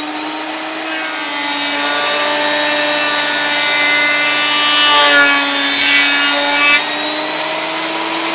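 Benchtop thickness planer running with a steady whine while a rough log slab feeds through its cutterhead, planing a flat edge. The cutting noise starts about a second in and grows louder, and the motor's pitch sags briefly under load about five seconds in. The cutting stops about seven seconds in while the motor keeps running.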